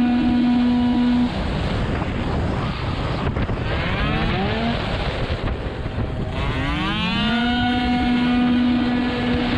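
Tuned two-stroke racing scooter engine at full throttle, held at a steady high pitch. About a second in the throttle comes off for a corner and the note drops to a rougher, uneven sound with short blips. Near the end the revs climb quickly back up to the same steady high pitch as it drives out of the corner, with wind noise on the onboard microphone.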